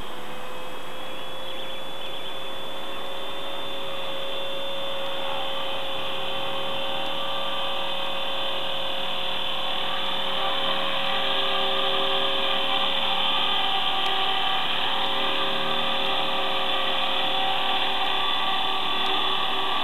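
Blade 400 electric RC helicopter's motor and rotors whining at a steady pitch, getting louder about halfway through as it comes in close and lands, its rotors still spinning.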